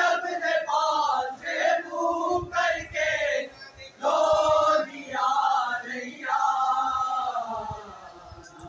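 Men's voices chanting a noha, a Shia mourning lament, in drawn-out sung lines that bend in pitch, with short breaks between phrases.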